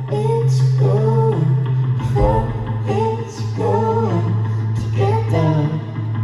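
Live band music: a song played with plucked guitar over a steady bass line, with a melodic line that is likely wordless singing.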